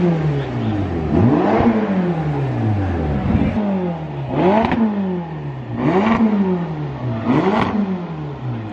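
A car engine revved over and over, about every second and a half: each time the pitch jumps up quickly and then sinks slowly back toward idle.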